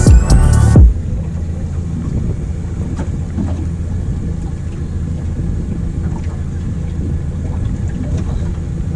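Boat engine idling with a steady low hum, with wind and water noise on the microphone. Background music cuts off about a second in.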